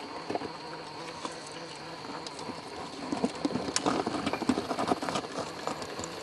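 Tyres and chassis of a 1/10-scale Traxxas TRX-4 rock crawler working over rock and loose stones: scattered crunches, clicks and knocks. They come thicker and louder between about three and five seconds in.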